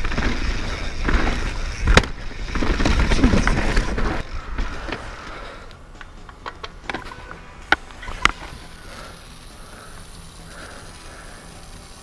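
Mountain bike being ridden down a rough dirt trail, heard from a helmet camera: the tyres and frame rattle over roots and rocks, with one sharp knock about two seconds in. The rattle then dies down to a quieter rolling noise with a few sharp clicks, as the bike slows.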